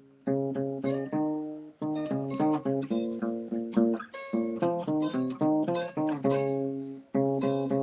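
Acoustic guitar and acoustic bass guitar playing together: rhythmic plucked chords over a bass line, with brief breaks between phrases.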